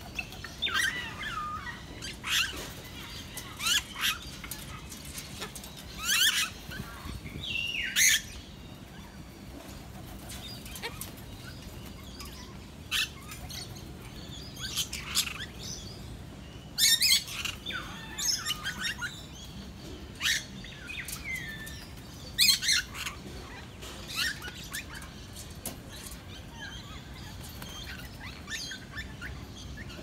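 Aviary birds calling in short, sharp squawks and chirps, some sweeping up or down in pitch. The calls come irregularly, with the loudest clusters around 17 and 22 seconds in, over a steady low background noise.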